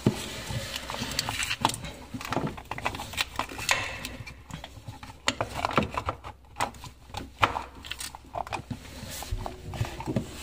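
Irregular small clicks, knocks and scraping as hands handle a plastic electrical connection box and a thick rubber-sheathed power cable, pushing them into place.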